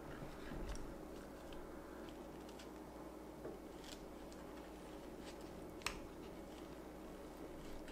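Chef's knife slicing through a block of acorn jelly and tapping the wooden cutting board: a few faint, short clicks and knocks, the sharpest about six seconds in.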